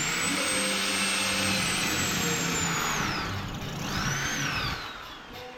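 Electric drill boring into the wall. The motor speeds up and runs steadily for about three seconds, winds down, is triggered again briefly about four seconds in, and winds down again.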